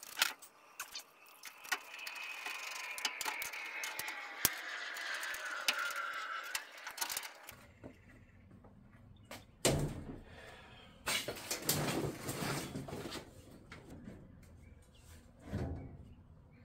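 Metal truck door being worked off its hinges: a drawn-out metallic squeal sliding down in pitch, full of small clicks and scrapes, for the first seven seconds or so. After that come a few knocks and thuds as the door is handled.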